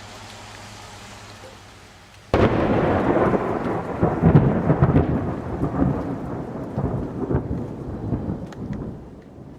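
Steady rain, then a little over two seconds in a sudden loud clap of close thunder that rolls on as a long rumble and slowly fades.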